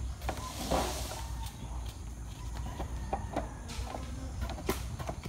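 Gravel tipped from a shoulder-carried bucket into wooden concrete formwork, a brief rush about a second in, followed by scattered knocks and clinks of hand work.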